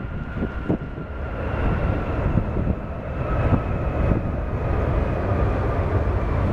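Jet airliner landing, engines running with a steady high whine that drifts slightly lower over a deep rumble. Wind buffets the microphone.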